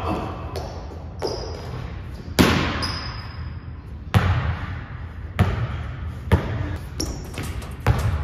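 A basketball dribbled on an indoor gym court: about eight irregularly spaced bounces, each echoing in the large hall.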